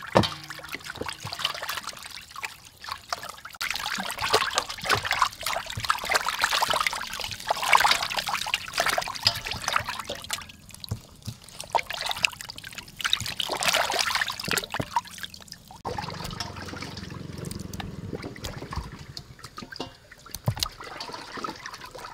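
Hands washing raw chicken wing pieces in a metal basin of water: irregular splashing and trickling in spells, with short lulls.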